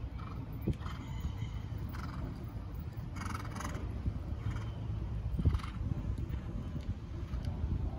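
Horse cantering on the sand footing of a dressage arena: muffled hoofbeats and the horse's breathing, irregular and short, over a low steady rumble.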